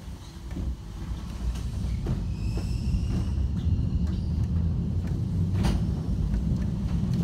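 W class electric tram pulling away and running along the track: a low rumble that builds over the first two seconds and then holds steady, with a few knocks and a faint high whine about two to three seconds in.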